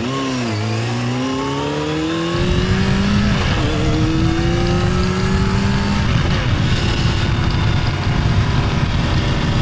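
Engine accelerating hard, its pitch climbing steadily, dipping sharply at a gear change about three and a half seconds in and then climbing again.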